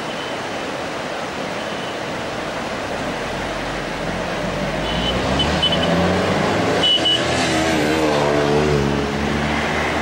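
Steady rush of whitewater river rapids. From about four seconds in, a motor vehicle's engine grows louder, its pitch wavering, and stays loud until near the end.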